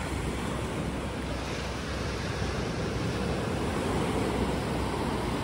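Surf washing onto a sandy beach: a steady hiss of small breaking waves.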